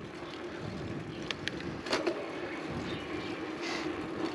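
Gravel bike rolling on a paved street, heard from a camera mounted on the bike: a steady tyre hum with rolling noise and a few sharp clicks about one and a half to two seconds in.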